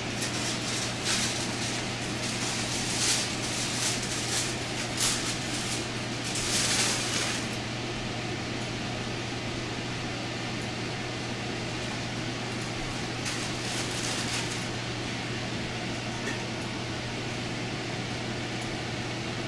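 Aluminium foil and baking paper crinkling and rustling as they are peeled off a pan, in quick crisp spells through the first seven seconds and again briefly about two-thirds of the way in, over a steady background hum.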